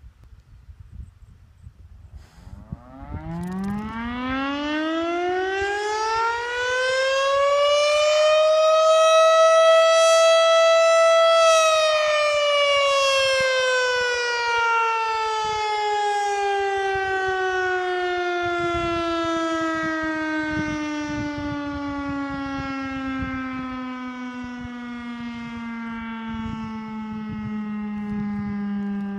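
Federal Signal STH-10A mechanical fire siren sounding its daily 6 PM blast. It winds up in pitch over about five seconds, holds at its top pitch for a few seconds, then slowly winds down and is still falling near the end. Wind buffets the microphone.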